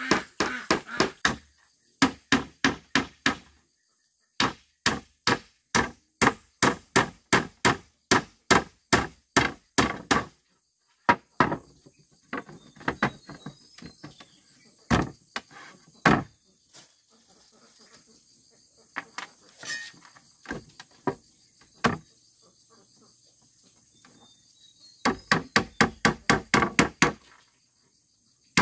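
Hammer blows on wood, in runs of about two strikes a second, then sparser and fainter strikes, then a quicker run near the end. A steady insect chirring runs in the background.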